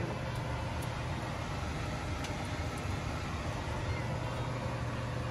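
Steady low hum and hiss of kitchen background noise, with a few faint light clicks as cardamom pods are cracked open by hand.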